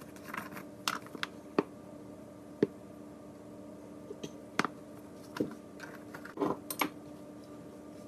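Irregular sharp clicks and taps of plastic seasoning containers being handled and tipped over a stainless steel mixing bowl, about a dozen in all, over a steady background hum.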